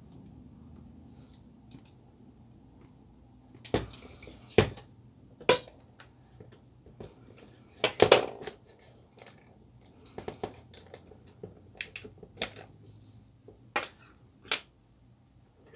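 Clicks and knocks of a laser printer fuser assembly's plastic parts and metal clips being worked loose by hand, with tool handling on the table. The knocks are scattered and irregular, with the loudest cluster about eight seconds in.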